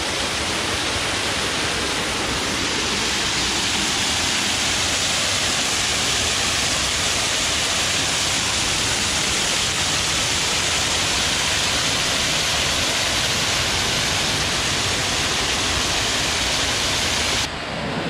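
Small waterfall rushing and splashing over rocks, heard close up as a steady, loud rush of water. It drops off suddenly near the end.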